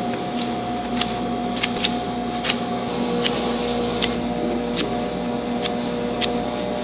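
A metal spatula spreading whipped cream over a cake inside an acetate collar: light sharp clicks and taps come about every half second or so, over a steady background hum.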